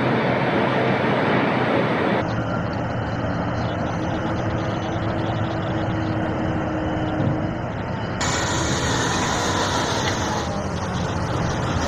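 Heavy open-pit mining machinery working: a steady mix of engine and mechanical noise from haul trucks and an electric rope shovel. The sound changes abruptly twice, about two seconds in and about eight seconds in.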